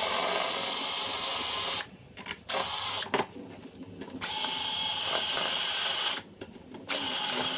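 Electric drill running in four runs of about one to two seconds with short pauses between, with a high motor whine: drilling out the rivets that hold a fluorescent ballast and fixture in a sign housing.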